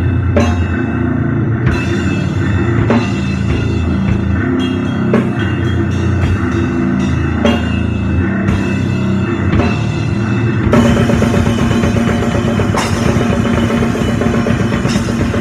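Live powerviolence band playing loud distorted guitar and drums: a slow, heavy section with separate drum and cymbal hits, which switches about ten seconds in to fast, dense drumming.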